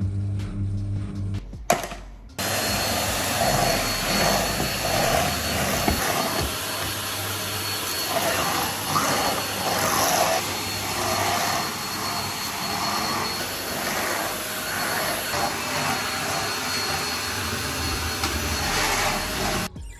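A washing machine drum turns with a low motor hum for about two seconds. Then a stick vacuum cleaner runs steadily as it is pushed over the floor: an even rushing with a thin high whine. It cuts off abruptly just before the end.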